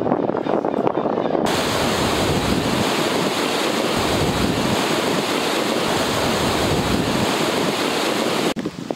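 Fast-flowing river water rushing: a loud, steady hiss that cuts in abruptly about a second and a half in and cuts off just as suddenly near the end. A duller background noise comes before it.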